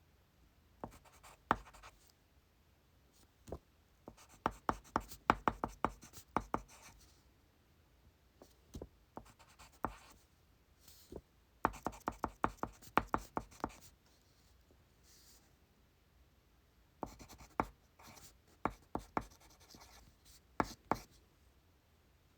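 Handwriting on paper at a desk: bursts of quick, sharp strokes, each run lasting a second or two with short pauses between.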